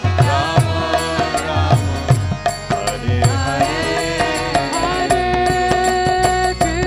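Kirtan music: a woman singing a chant over a harmonium's held chords, with a mridanga drum keeping a steady beat of about two strokes a second and small hand cymbals clashing on the beat, while a trumpet plays along.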